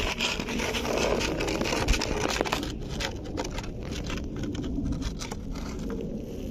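Cat eating: irregular clicks and scrapes of chewing food, over a steady low rumble.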